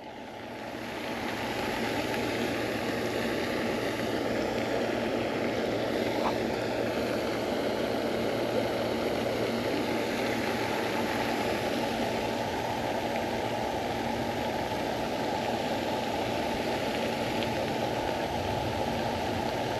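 Steady rushing background noise, rising over the first second and then holding level, with no distinct events.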